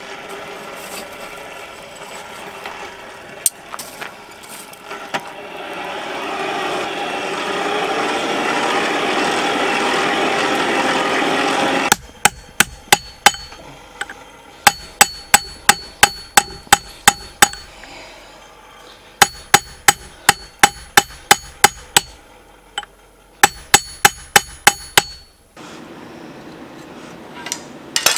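Hand-cranked forge blower rushing air into a coal fire, swelling as it spins up. Then rapid hammer blows on red-hot steel on an anvil, in four runs of ringing strikes at about three a second.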